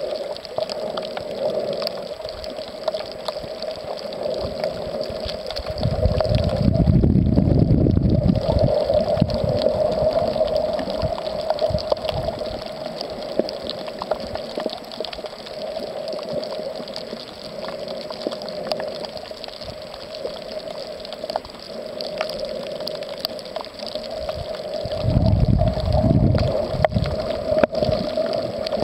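Water sloshing and gurgling against a camera held underwater, with a steady hum under it. Louder low rushes of water come about six seconds in and again near the end.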